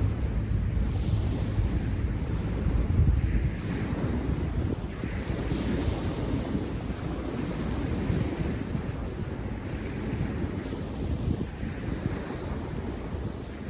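Wind blowing on the microphone, a low rushing buffet that is gustiest in the first few seconds and then eases.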